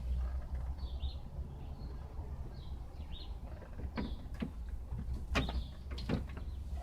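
A few sharp clicks and knocks from parts of a car door being handled during reassembly, over a steady low rumble.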